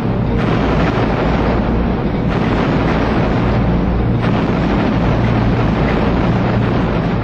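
Continuous heavy rumble of naval gunfire and shell explosions, swelling afresh about every two seconds.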